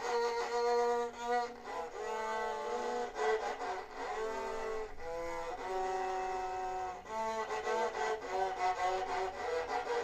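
Violin playing a melody in a series of pitched notes with vibrato.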